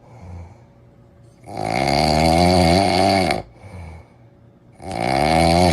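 A dog snoring: a long, pitched, wavering snore about a second and a half in that lasts about two seconds, quiet breathing, then another snore starting near the end.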